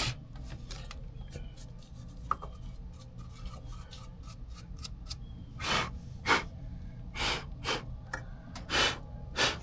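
Light handling noise over a low steady hum, then from about halfway a run of about seven short rubbing strokes, roughly two a second: dust, spider webs and leaves being brushed out of an air-conditioning condenser's electrical panel.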